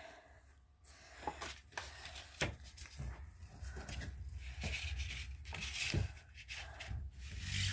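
Soft rustling and scattered light knocks of things being handled and moved about while tidying, over a low rumble.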